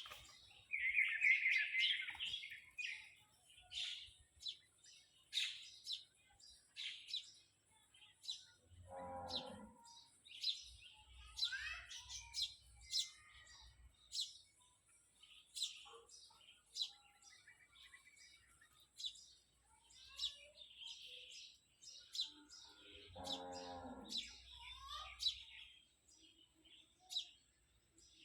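Many small birds chirping and singing in short high calls throughout. Cattle low twice, once about a third of the way through and again near the end.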